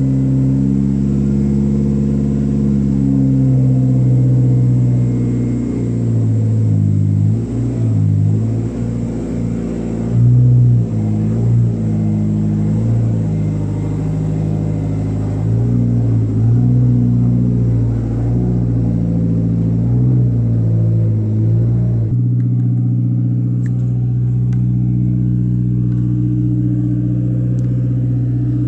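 Toyota Starlet EP82's four-cylinder engine running just after being started, its note wavering up and down for a while, then settling to a steadier idle about two-thirds of the way in.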